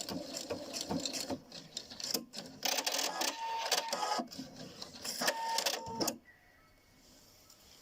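PFAFF Quilt Expression 720 sewing machine stitching a wide decorative maxi stitch with the fabric fed sideways: rapid mechanical clicking in two stretches with a brief whine twice. It stops suddenly about six seconds in.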